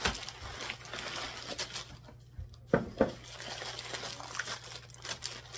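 Crinkling of plastic-wrapped snack cakes being handled and dropped into a plastic basket among bags of chips, with two sharp knocks close together about three seconds in.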